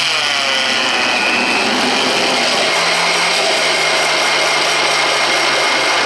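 VEVOR 8850E magnetic drill press running at slow speed, its annular cutter fed by hand into steel plate and cutting. The motor's pitch drops in the first second as the cutter bites, then it runs steadily with a cutting noise.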